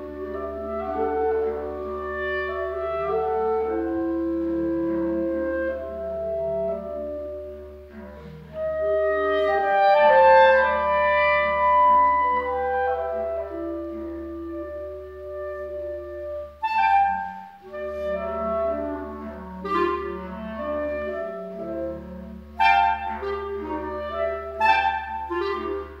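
Four clarinets and a string quartet playing contemporary classical chamber music live: layered, overlapping held notes, with shorter, sharper notes coming in during the last third.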